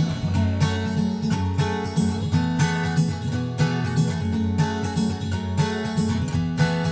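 Background music: an acoustic guitar arrangement, plucked and strummed in a steady, even rhythm.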